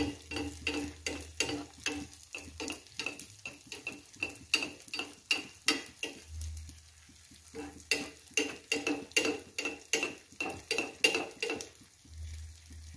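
Anarse deep-frying and sizzling in hot oil in a kadai while a steel ladle scoops and splashes the oil over them, each stroke a short scrape or clink against the pan, about two or three a second. The strokes pause briefly around the middle and thin out near the end. The oil is spooned over so the anarse puff up lacy.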